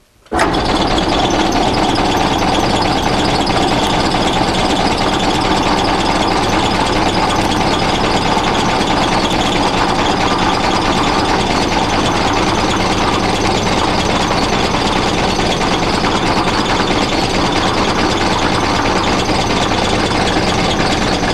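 Benchtop drill press switched on and running steadily as a 9/64-inch bit drills clearance holes into a cast aluminum engine-frame casting. The motor starts suddenly just after the beginning.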